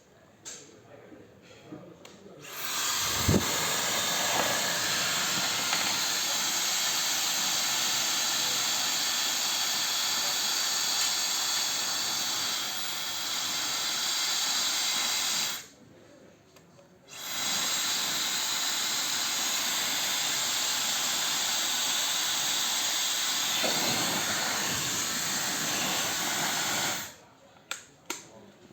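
Dyson Supersonic hair dryer blowing with a steady rush of air. It is switched off for a second or two partway through, then runs again before stopping.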